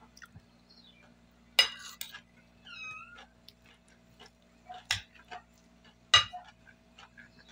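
Metal cutlery clinking and scraping on a ceramic plate while eating: three sharp ringing clinks with lighter ticks between. A short squeak that bends in pitch comes about three seconds in.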